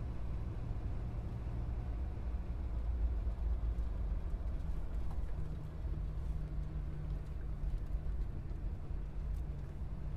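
Air handling unit's blower and motor running: a steady low hum and rumble, with one low tone growing stronger about halfway through.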